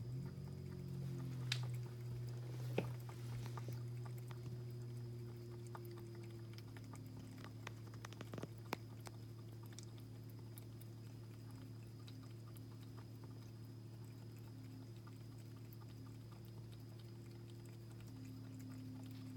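Norwegian Forest Cat eating from a bowl, with small scattered clicks of chewing and licking. A steady low hum runs underneath, louder in the first few seconds.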